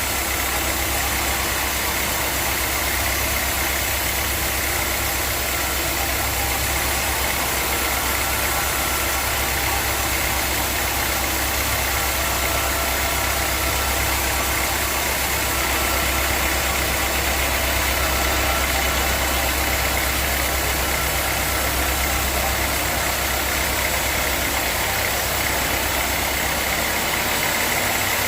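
Sawmill machinery running steadily: a low engine hum with a faint steady high tone and hiss, unchanging throughout.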